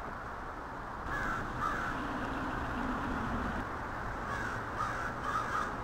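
Crows cawing, a series of short harsh calls starting about a second in and repeating several times, over a steady background hiss.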